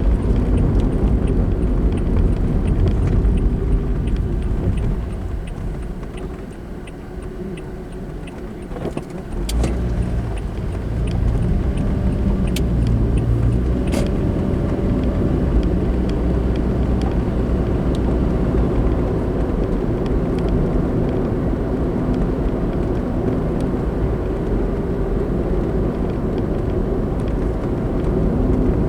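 Car driving noise heard from inside the cabin: steady low road and engine noise that drops for a few seconds partway through as the car slows, then builds again. A few sharp clicks come near the middle.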